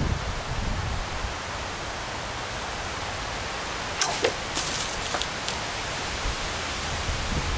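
Steady outdoor rustle of wind, then about four seconds in a sword blade strikes a standing plastic jug of water: a sharp hit, a short spatter of water, and a couple of light knocks as the jug tips over onto the board. The cut fails to take the bottom off cleanly.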